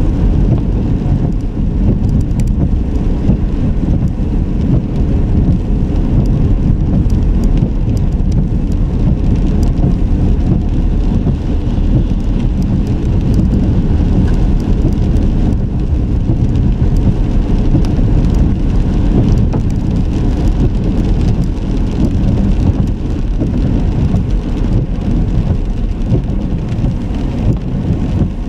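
A car driving: a steady low rumble of road and tyre noise, with faint light ticks over it.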